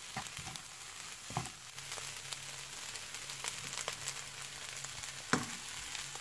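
Fried rice sizzling in a non-stick wok while a metal spatula scrapes and taps the pan as it is stirred, with sharper knocks about a second in and near the end.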